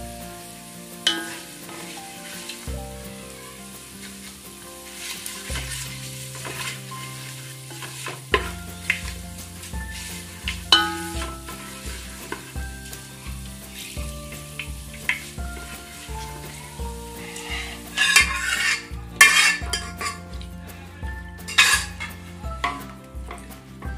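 Cumin seeds, dried red chillies and bay leaves frying in hot oil in an aluminium pot (an Indian tadka), stirred with a wooden spatula that now and then knocks against the pot. About eighteen seconds in, the sizzling grows louder and sputters for a few seconds as the yogurt and gram-flour kadhi batter goes into the hot tempering.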